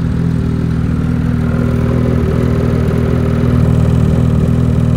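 Lynx Rave GLS snowmobile's Rotax 850 E-TEC Turbo R two-stroke twin idling steadily at about 1200 rpm.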